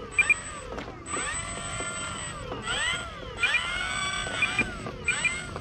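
Birds singing, with sweeping up-and-down phrases and short paired high chirps repeating every second or so, over a steady thin high-pitched drone.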